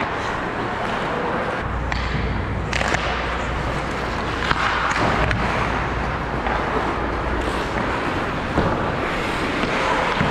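Ice hockey skates scraping and carving on rink ice as the player skates, with a few sharp knocks of sticks or puck.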